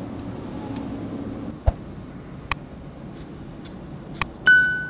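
A few sharp mouse clicks and then a single bell ding, the sound effect of a subscribe-and-bell button animation, over the steady low hum of a pickup truck cab. The ding comes near the end and is the loudest sound.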